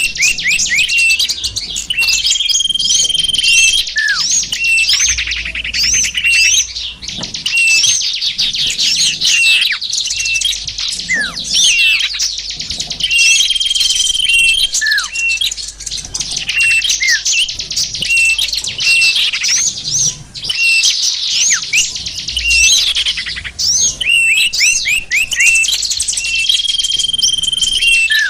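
A dense mix of small songbirds calling over one another: rapid chirps, fast trills and short swooping notes, with a short held whistle that recurs a few times. This is a lure-call recording, played to draw small wild birds in.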